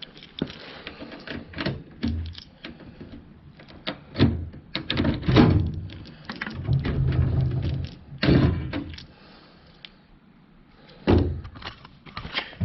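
Steel tool-cabinet drawers on ball-bearing slides being pulled open and pushed shut, with sliding runs of a second or so and knocks and thunks as they stop.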